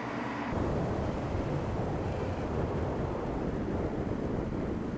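Mercedes-Benz CLS Shooting Brake driving at speed: a steady rush of road and wind noise with no clear engine note, after a brief engine hum that cuts off about half a second in.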